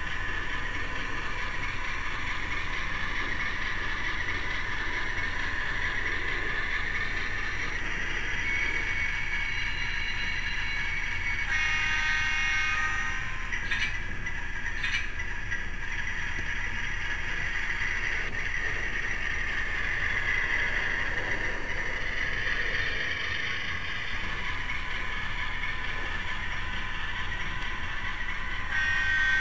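An HO-scale Athearn PRR RS-3's MRC 1820 DCC sound decoder plays a steady diesel engine sound over the low rumble of the model's motor and wheels on the track. A short horn sound comes about twelve seconds in, followed by two sharp clicks, and another horn sound starts right at the end.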